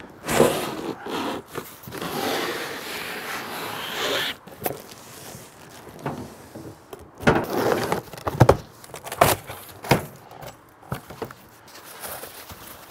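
Cardboard packaging being handled: a few seconds of scraping and rustling as a tall cardboard box slides up off its contents, then a string of sharp knocks and rustles from cardboard flaps and foam packing.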